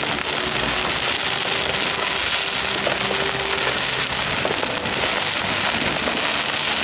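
Fireworks crackling in a dense, steady stream, with no single big bang standing out.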